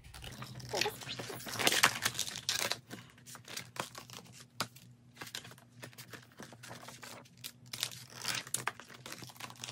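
Paper and card rustling and crinkling, with irregular light taps and clicks, as an album's booklet, poster and photo cards are handled and searched through.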